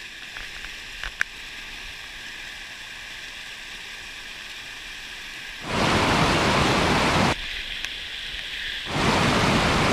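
Steady rushing water noise. It is fairly quiet for the first half, then abruptly much louder from about six seconds in, dipping briefly near eight seconds before rising again.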